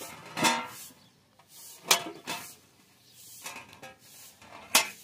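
Kitchen knife cutting through a firm guava, with scraping strokes and sharp knocks of the blade on a stainless steel tray, the loudest about two seconds in and near the end.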